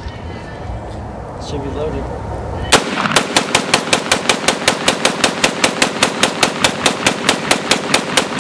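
AR-15-style rifle fired in a long rapid string of about thirty shots, roughly five a second, starting a little under three seconds in.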